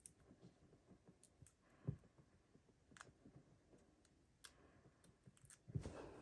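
Near silence with a few faint, sharp clicks and taps from paper crafting: mini dimensionals (small foam adhesive pads) being peeled and pressed onto a die-cut paper duckling. A short rustle of paper handling comes near the end.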